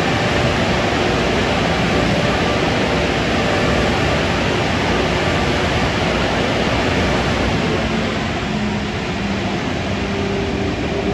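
Superior Tempest car wash blower dryers running, a loud, steady rush of air. A low hum joins in during the last few seconds.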